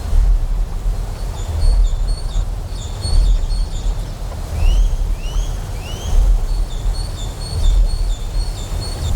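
Deep generator hum pulsing, swelling about every one and a half seconds, over a steady wash of noise. Short high chirps repeat through most of it, and three rising chirps come in the middle.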